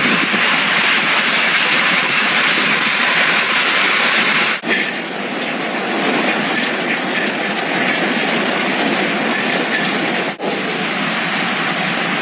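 Hail pelting down hard, a dense loud clatter of countless small hits. The sound changes abruptly about four and a half seconds in and again near ten seconds, as different recordings of the storm follow one another.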